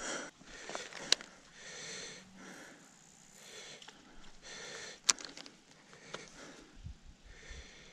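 A person breathing in and out through the nose close to the microphone, a soft breath every two to three seconds, with a sharp click about a second in and another about five seconds in.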